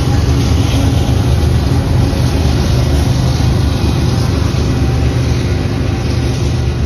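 Union Pacific diesel freight locomotives passing close by, their engines making a steady loud rumble with a low drone, mixed with the noise of wheels on rail. The level eases slightly near the end as the last locomotive goes by and the freight cars follow.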